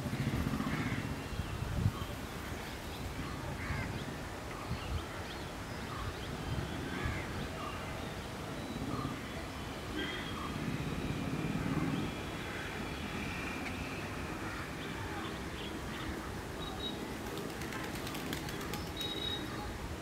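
Crows cawing now and then, short calls scattered throughout, over a low rumble that swells near the start and again about ten seconds in.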